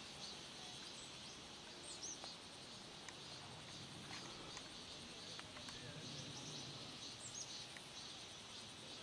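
Faint outdoor ambience: insects trill steadily in a high, finely pulsing drone. A couple of short, falling bird chirps come about two seconds in and again near the end.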